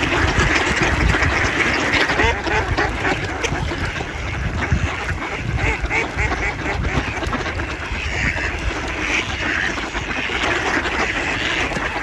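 A large flock of mallard ducks quacking and calling, many birds at once, over a low rumble underneath.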